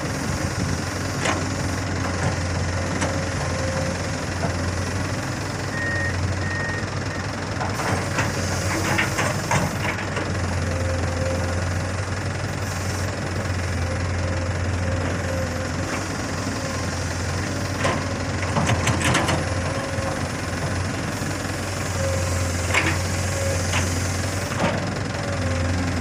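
Komatsu long-arm excavator's diesel engine running steadily under hydraulic work, with scattered short knocks and clicks as the bucket works the earth slope.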